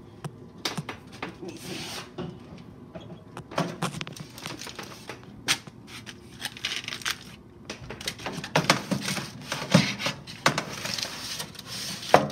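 Foil-lined metal baking tray being handled and slid onto the wire rack of a countertop air fryer oven: aluminium foil crinkling, with scattered clicks and scrapes of metal on the rack and a sharp knock near the end.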